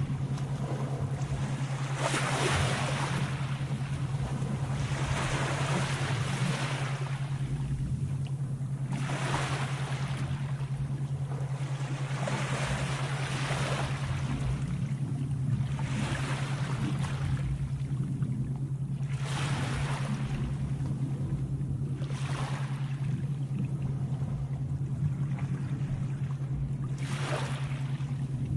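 Sea waves washing in and drawing back, swelling and fading every two to three seconds, over a steady low hum.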